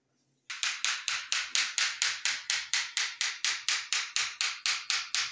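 Kitchen knife slicing a cucumber on a plastic cutting board: quick, even chopping strokes at about five a second, starting about half a second in.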